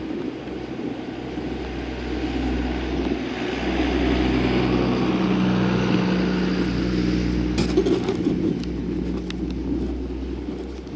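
A motor vehicle passing, its engine hum and tyre noise growing louder to a peak a little past halfway and then fading. A few sharp clicks sound about two-thirds of the way through.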